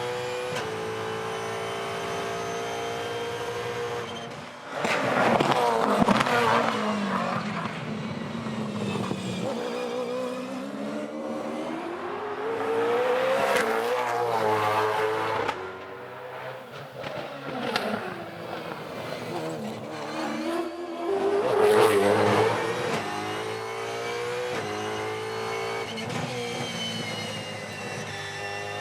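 Ford Mustang Supercar's 5.0-litre V8 at full race pace on a qualifying lap, its pitch climbing through each gear and dropping on downshifts under braking. It is loudest in two spells, one a few seconds in and one about three quarters of the way through.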